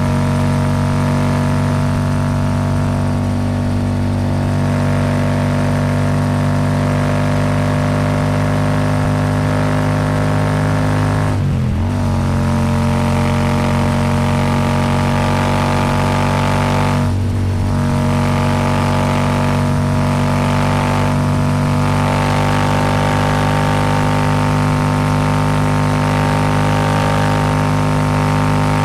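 Royal Enfield Super Meteor 650's parallel-twin engine running through a Rhino Racing slip-on exhaust at a steady highway cruise, with wind rush. The engine note dips briefly and comes back twice, about 12 seconds and 17 seconds in.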